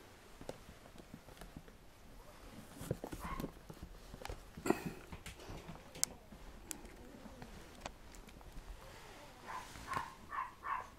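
Young red poodle puppy giving short, high whimpering squeaks: one about three seconds in and a quick run of four near the end, with soft fleece rustling and a few light clicks in between.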